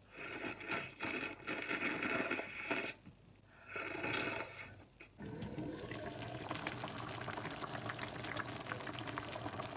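Loud wet slurping of glass noodles: two long slurps with a short pause about three seconds in. From about five seconds on, a steady bubbling and crackling of spicy hot pot broth simmering in a pan.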